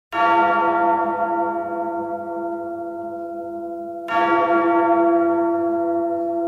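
Large church bell tolling twice, about four seconds apart; each stroke rings on and slowly fades.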